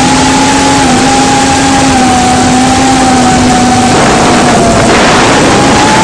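Brushless motors and propellers of an FPV quadcopter, heard through its onboard camera's microphone: a steady motor whine that dips slightly about five seconds in and climbs again near the end as the throttle changes, under a loud rush of wind and prop wash.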